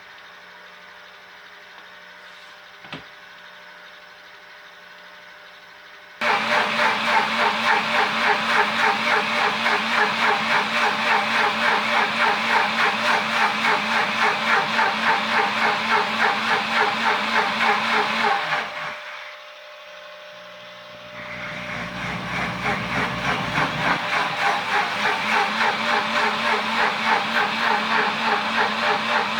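Pampered Chef Deluxe Cooking Blender's motor running its heated-wash self-cleaning cycle, churning water and suds with a regular pulsing. It starts abruptly about six seconds in after a low hum and a single click, drops away briefly about nineteen seconds in, then builds back up.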